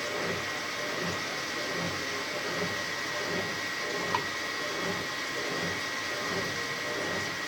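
Washing machine running, with a churning pulse repeating a little faster than once a second over a steady high whine. A single click about four seconds in.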